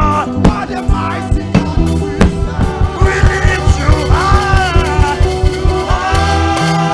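Upbeat worship music from a band with drums and a bass line keeping a steady beat, and a voice singing a melodic line over it.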